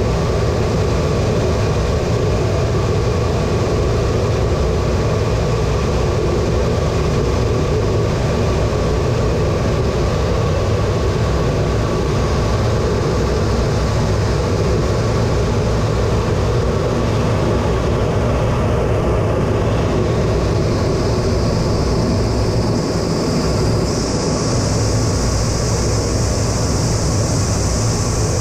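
Inside the cockpit of an A-10 Thunderbolt II in flight: the twin General Electric TF34 turbofan engines and the airflow make a steady loud roar with a constant whine. A higher hiss comes in about 20 seconds in and grows louder near 24 seconds.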